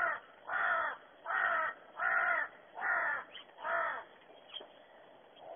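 Pet crow cawing: six caws in an even series, about one every three-quarters of a second, stopping about four seconds in.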